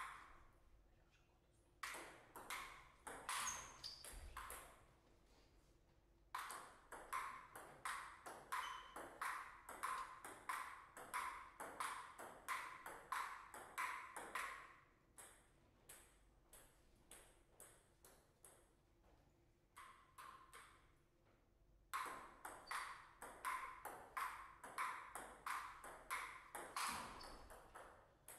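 Table tennis rallies: the ball clicking off the bats and bouncing on the table in a quick, even back-and-forth rhythm. The clicks come in three runs with pauses between them, the middle rally the longest at about eight seconds.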